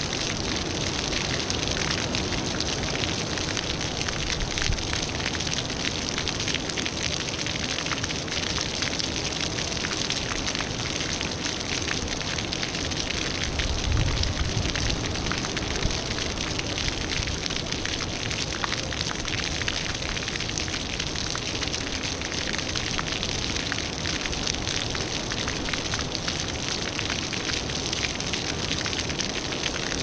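Three small pool-deck fountain jets spraying water that falls back and splashes onto the shallow tiled pool: steady splashing with a constant patter of droplets. A brief low rumble comes about halfway through.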